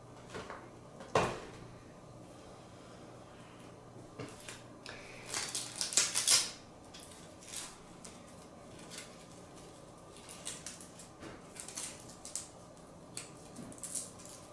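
Objects handled on a wooden table: a sharp knock about a second in, a burst of rustling and clatter around five to six seconds in, then small intermittent rustles and clicks as a nylon mesh bag is unfolded and spread out.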